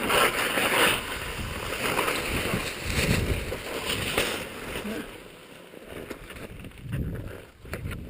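Wind buffeting the microphone in uneven gusts over a rushing hiss, dropping quieter about five seconds in.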